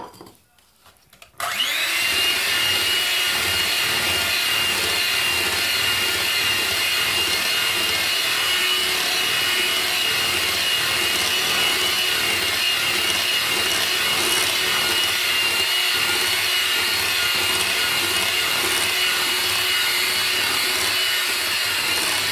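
A short knock, then an electric hand mixer switches on about a second and a half in and runs steadily with a high motor whine. Its beaters are mixing brownie batter in a glass bowl.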